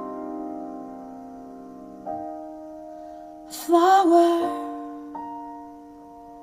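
Recorded song played through a homemade three-way Fostex speaker system: held electric-piano chords that change every few seconds, with a short sung phrase about halfway through.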